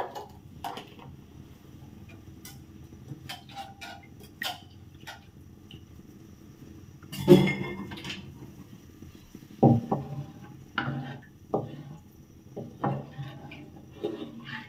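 Kitchen utensil clinks and knocks: a small spice jar and plastic spoon handled and set down, a loud clatter about seven seconds in, then a wooden spatula knocking and scraping in a non-stick frying pan of heating coconut milk. A low steady hum runs underneath.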